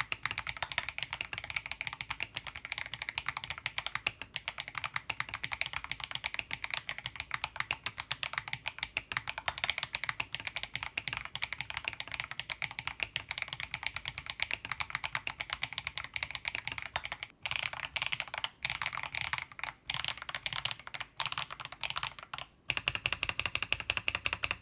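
Akko MG108B Bun Wonderland mechanical keyboard with bun-shaped keycaps and Akko Cilantro tactile, non-clicky switches, typed on rapidly. Its keystrokes make a 'dogak-dogak' clack likened to a moktak, a wooden temple block. There are a few brief pauses in the typing near the end.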